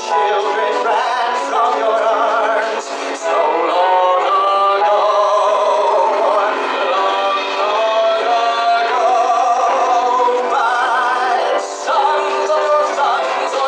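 Live song: a male singer singing long notes with vibrato over band accompaniment.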